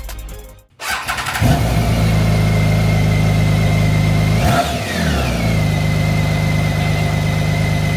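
BMW K1600 GTL's inline-six engine starting about a second in and settling into a steady idle with a high whine over it, its speed changing briefly about four and a half seconds in.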